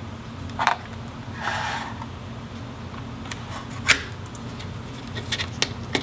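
Small internal parts of a MacBook being handled by hand: a few sharp clicks and taps as the logic board and speaker modules are moved, with a short rustle about a second and a half in and a quick cluster of clicks near the end, over a steady low hum.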